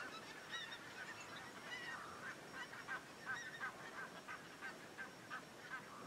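A flock of geese calling in flight: many short honks, overlapping and repeated, coming several a second in the second half.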